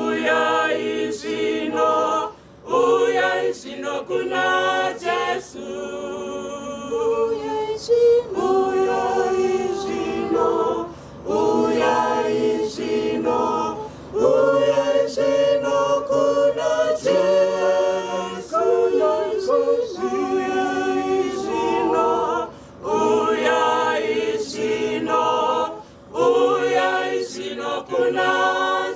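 A women's church choir singing a hymn unaccompanied, many voices together, in phrases with short breaks between them.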